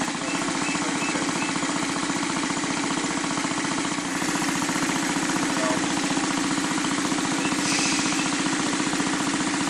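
Portable piston air compressor running steadily, with a rapid, even pulsing, as it pumps air through a hose into the air cannon.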